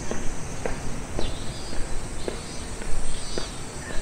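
Footsteps of a person walking at an even pace, about two steps a second, with faint high chirping in the background.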